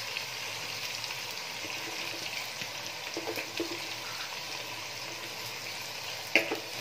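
Raw sliced onions sizzling steadily in a pot of hot oil, with light crackling, just after going in to brown. A short sharp tap comes near the end.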